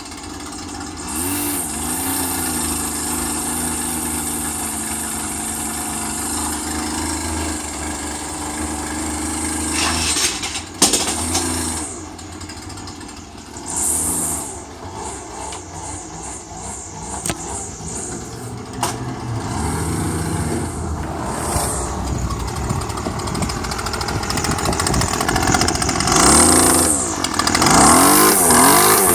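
Small gasoline engine of a lawn mower built for mudding, running loudly and revved up and down several times, with a sharp knock partway through.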